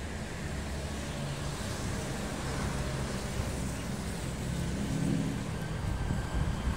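Road traffic: passing cars and motorcycles making a steady engine rumble that swells about five seconds in.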